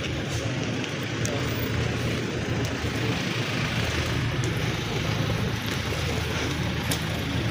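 Steady rushing background noise, outdoors, with a few faint clicks scattered through it.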